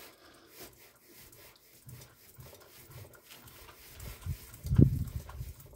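Low, close-up rumbling breaths or grunts and rubbing against the microphone as a man leans in and strains to bend a thick replica belt, starting about four seconds in and loudest shortly after.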